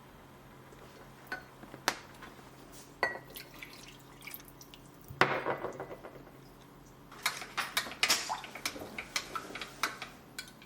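Dishes, glass and utensils clinking and knocking. Single taps come first, then a short clatter about five seconds in and a busier run of clinks in the second half.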